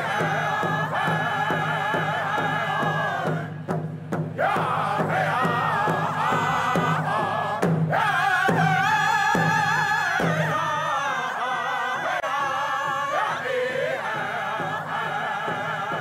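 Group of Native American singers chanting together over a steady, even beat of rawhide frame drums. The voices break off briefly about four seconds in, then come back in.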